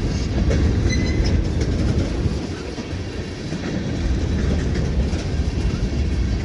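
Norfolk Southern train rolling past: a steady rumble with the clickety-clack of wheels running over rail joints.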